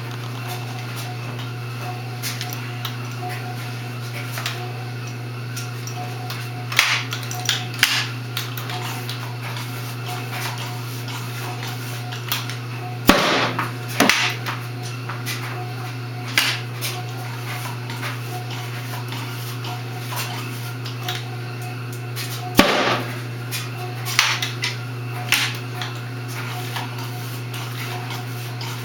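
Home-built propane tennis ball cannon firing twice, each a sharp bang (about 13 and 23 seconds in) followed by a few lighter knocks, with smaller clicks and knocks earlier on. A steady low hum runs underneath.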